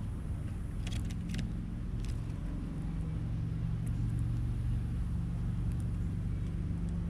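Steady low rumble of a motor vehicle engine with a hum, with a few short sharp clicks about a second and two seconds in.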